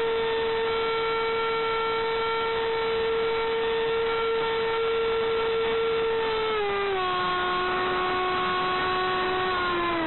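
Electric ducted fan of an Art-Tech F/A-18 foam RC jet whining at a steady high pitch over a rushing noise of wind, heard from a camera on board. About two-thirds of the way through the whine steps down in pitch as the fan slows, and near the end it begins to fall again.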